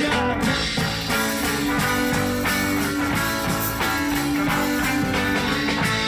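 Street band playing an instrumental stretch of a rock song: steadily strummed acoustic guitar over electric bass, with no singing.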